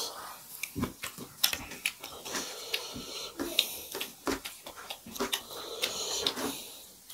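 Close-up eating sounds of two people eating rice and dal by hand from steel plates: wet chewing and lip smacks, and hands squishing and mixing rice on the plates. There is a steady run of short sharp clicks and smacks.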